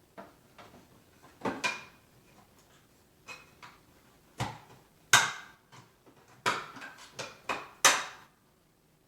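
Hard plastic knocks and clacks as the bag door and housing of a Hoover HushTone commercial upright vacuum are handled and pressed into place; the door does not seem to be seating properly. About a dozen irregular hits, the loudest about five seconds in and another near the end.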